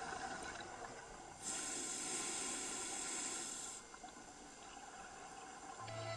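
Faint underwater hiss and bubbling, with a brighter high hiss for about two seconds starting a second and a half in.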